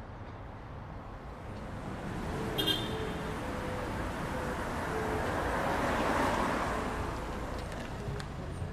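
Street traffic: a vehicle passes, swelling to its loudest about six seconds in and then fading, with a short high beep about two and a half seconds in.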